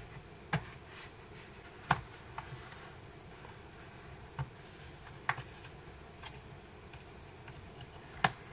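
Plastic prying tool working along the seam of an MSI Stealth 14 Studio laptop's bottom panel, with about eight short, sharp clicks at uneven intervals as the panel edge is pried apart.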